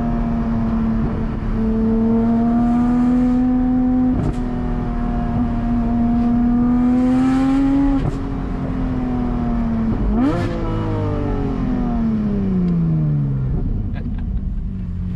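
Porsche 718 GT4's naturally aspirated 4.0-litre flat-six with a Soul Performance exhaust, heard from inside the cabin while driving. The engine holds steady revs that creep up for about eight seconds, breaks off, then jumps in a quick rev about ten seconds in and falls away steadily.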